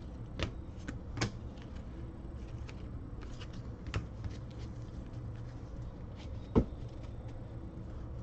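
Trading cards being handled and set down in stacks on a table: a few soft clicks and taps, the loudest about six and a half seconds in, over a steady low hum.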